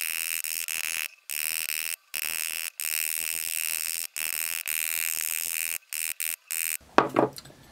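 Ball-peen hammer striking copper wire on a steel bench block, sped up twenty times so the blows run together into a continuous high metallic buzz broken by short gaps. The buzz stops near the end, followed by one louder single knock.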